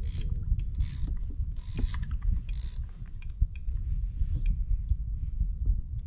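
Fishing reel being cranked, its gears and ratchet clicking irregularly over a steady low rumble, with a few short rushes of hiss in the first three seconds.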